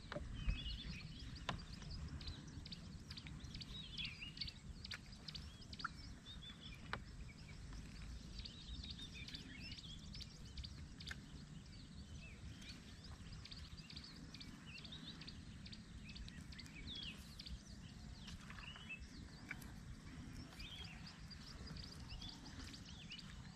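Faint outdoor ambience: scattered bird chirps over a low, steady rumble of wind, with a few faint clicks.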